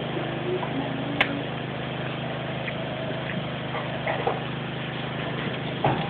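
Water spraying steadily from a pull-down kitchen faucet sprayer onto a cockatiel and the stainless steel sink, with one sharp click about a second in.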